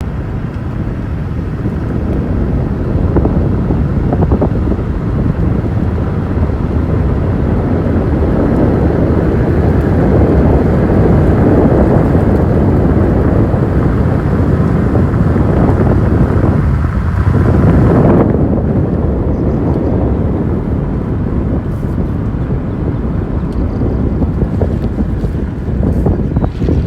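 Loud wind buffeting the microphone, a steady low rushing roar; about two-thirds of the way through the hiss in the upper range cuts off suddenly, leaving a duller rumble.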